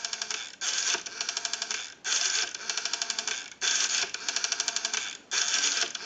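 Rotary dial of a Western Electric 337 candlestick telephone being dialled four times. Each pull brings a short rasp, then the dial runs back with a rapid, evenly spaced train of clicks, about ten a second, as it sends the digit's pulses. The return is smooth and even, the sign of a dial in good working order.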